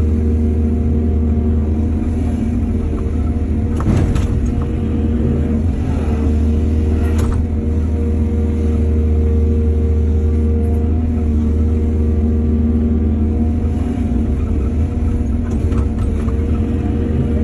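Excavator's diesel engine running steadily as a low drone, with a couple of sharp knocks, one about four seconds in and another a few seconds later.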